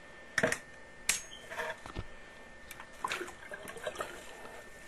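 Water sloshing and splashing in a sump pit as a submersible sump pump is lowered into it, in a string of short, irregular splashes and knocks; the loudest comes about half a second in.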